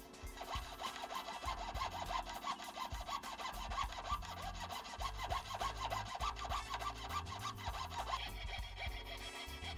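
Jeweller's piercing saw cutting through a thin purpleheart clock-hand blank in rapid, even strokes, stopping about eight seconds in. Background music plays underneath.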